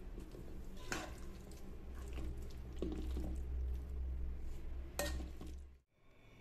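Chicken in a yogurt-and-spice marinade being mixed by hand in an aluminium bowl, with sharp knocks against the metal bowl about a second in and again near five seconds. It cuts off suddenly near the end.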